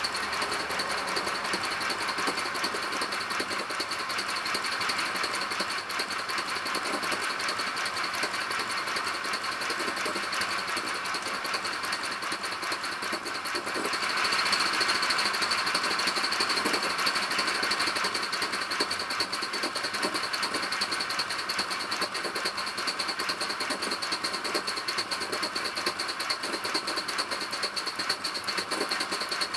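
Aster BR 52 live-steam model locomotive running under steam: a rapid, even chuffing with a steady hiss, getting louder about halfway through.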